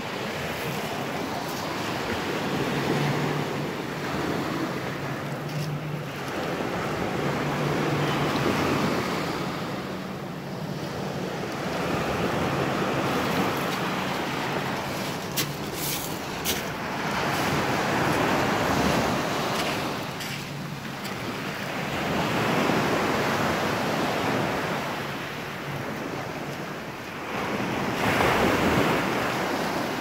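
Small sea waves washing up on a sand-and-pebble beach, surging in and drawing back about every five seconds.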